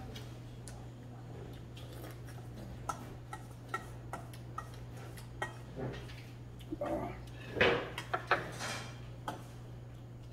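Metal spoon and chopsticks clinking and scraping against a stainless steel bowl while eating, a scatter of light separate clicks, with the loudest run of clinks and scrapes about three-quarters of the way through.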